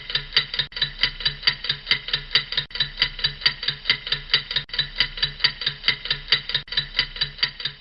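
Edited-in ticking loop like a clock: about four even ticks a second, each with a low note under it, the pattern repeating every two seconds.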